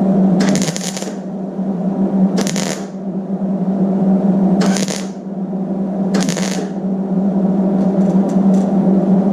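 MIG welder laying plug welds on a sheet-steel wing patch: four short crackling bursts of about half a second each, roughly two seconds apart.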